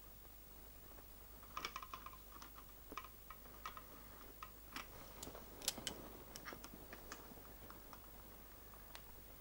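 Faint, irregular clicks and taps of pliers and small metal tools working plastic steering links and ball cups on a 1/10 scale RC car chassis. The clicks come in a cluster about a second and a half in and again around the middle, the sharpest near six seconds.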